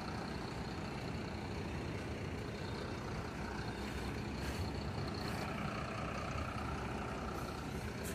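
Diesel intercity coach buses running steadily, a low engine rumble with a couple of short hisses about halfway through.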